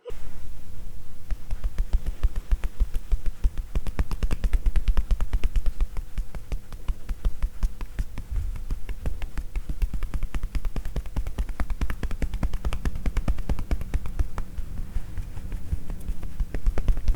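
Tapotement percussion massage: hands rapidly and steadily tapping on a person's upper body, a fast even rhythm of dull, hollow pats.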